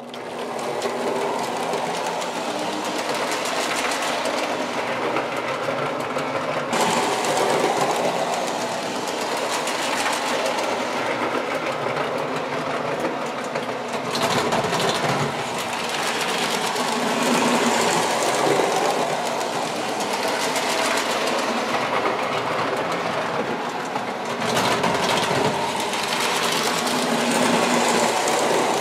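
Two coupled Lionel O-gauge ALCO diesel locomotives running around the track: a steady whir of their electric motors with the rattle of wheels on the rails, swelling and easing a little as they go around the loop.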